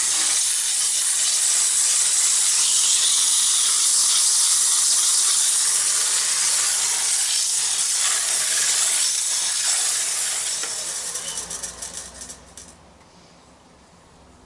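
Coarse 60-grit sandpaper held against a wooden box lid spinning on a wood lathe: a loud, steady hiss that turns fluttery about ten seconds in and stops a couple of seconds before the end.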